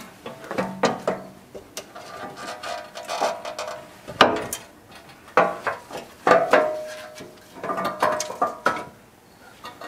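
A new sheet-metal muffler being maneuvered up into place under a 1969 VW Beetle, knocking and scraping against the car as it is worked toward its mounting studs. The irregular knocks come several a second at times, and some ring briefly like struck sheet metal.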